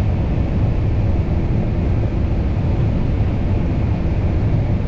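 Combine harvester running steadily while picking corn, heard from inside the cab: a constant low drone of engine and threshing machinery.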